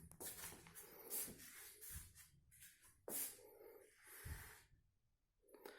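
Near silence broken by faint, short rustles and breaths close to the microphone, with a quieter gap near the end.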